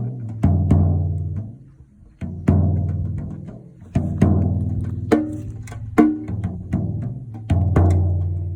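Drums played in a loose rhythm: low, pitched strikes that ring out and fade, with a short pause about two seconds in.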